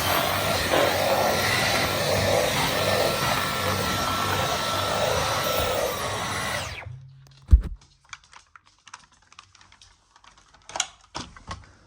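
Dyson V15 Detect cordless stick vacuum running with a steady whine over loud airflow noise. Its motor tone steps down in pitch about six seconds in, and it switches off and winds down about half a second later. A single heavy thud follows, then light clicks and knocks.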